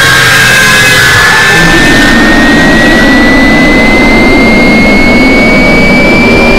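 A loud, harsh layered noise mix with a single piercing tone that slowly and steadily rises in pitch. The noise bed shifts about two seconds in, losing its highest hiss and thickening in the middle range.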